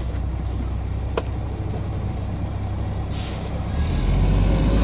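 Mack MR garbage truck's diesel engine idling, with a single clank about a second in. About three seconds in the air brakes release with a short hiss, and the engine picks up as the truck starts to pull away.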